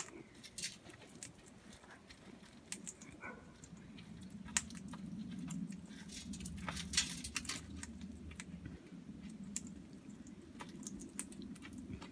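Faint, irregular sharp clicks of a king parrot cracking and husking seed in its beak. A low rumble swells in the middle and fades again.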